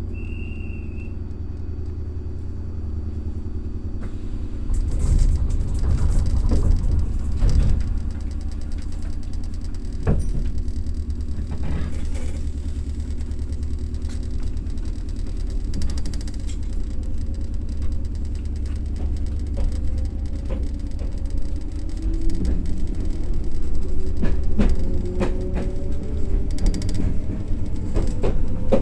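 Iyotetsu electric train running: a steady low rumble with wheel knocks, and in the last third a motor whine that rises slowly in pitch as the train picks up speed.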